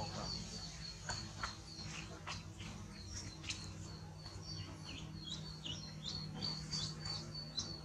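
Birds calling: a high short note repeated about three times a second, with scattered quick downward-sliding chirps over it.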